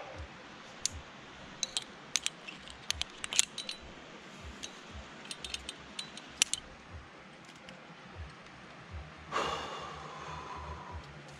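Sharp metal clicks and jingles of sport-climbing gear: carabiners and quickdraws knocking on the harness, in scattered groups, as the climber moves and handles the rope at a quickdraw. Near the end a louder rushing sound lasts about a second and a half.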